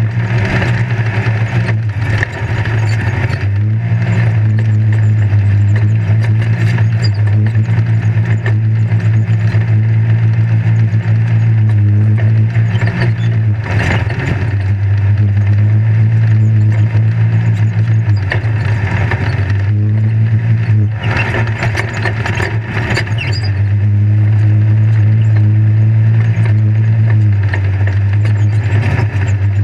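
Off-road race vehicle's engine running hard, heard from inside the roll-caged cab as a loud steady drone whose pitch steps up and down several times as the speed changes. Sharp knocks and rattles from the chassis and cage come through over the rough ground.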